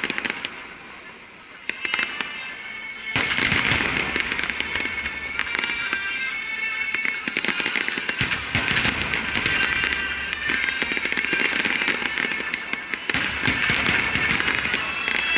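Aerial fireworks shells bursting: three heavy booms about five seconds apart, each followed by a long stretch of dense crackling from the bursts.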